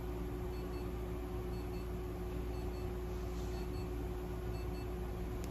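A faint electronic double beep repeating about once a second, over a steady electrical hum from clinic equipment.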